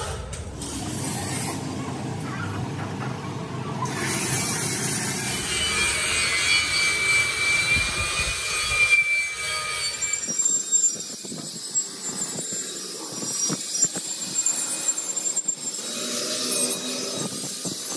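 Electric angle grinder with a red abrasive disc stripping paint off a steel tractor wheel centre: a steady high whine with scraping, turning rougher and more uneven, with sharp scratchy peaks, in the second half.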